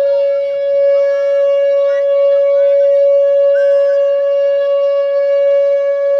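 Whelen WPS-2910 electronic outdoor warning siren sounding its steady alert tone: one loud, unbroken, even-pitched tone. Short, fainter rising-and-falling wails come and go over it.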